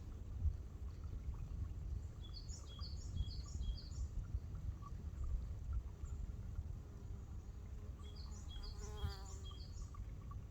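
A small wild bird singing two quick phrases of short, high notes, one about two and a half seconds in and one about eight seconds in, over a steady low outdoor rumble.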